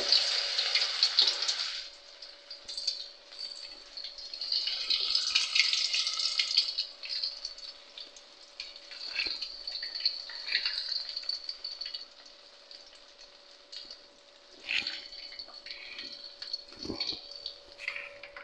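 Vada batter frying in hot oil in a kadai, sizzling and crackling, swelling in two loud stretches as pieces go in, with splashing and dripping as a wet hand dips in a bowl of water.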